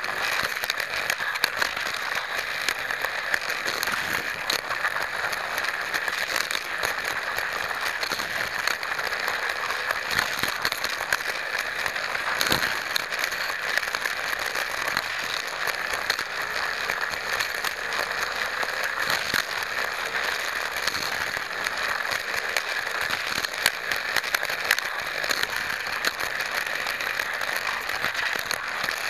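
Hot Wheels Sizzlers car running at speed along plastic fat track, picked up by a camera riding on the car. Its small battery-powered electric motor gives a steady high whir, with frequent small clicks and rattles from the wheels and body on the track.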